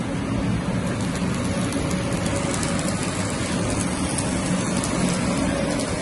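Steady factory machinery noise: a continuous rushing hum with faint steady tones underneath, even in level throughout.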